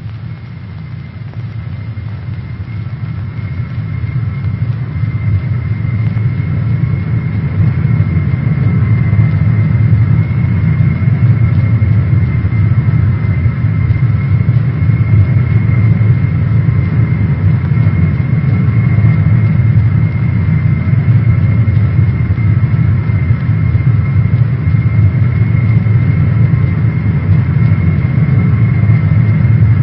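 Jet aircraft engines running: a steady low rumble with a thin high whine over it. It swells up over the first several seconds and then holds steady.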